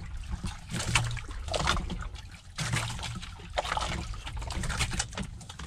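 Water lapping and sloshing against the hull of a wooden outrigger fishing boat in uneven splashes, over a low hum.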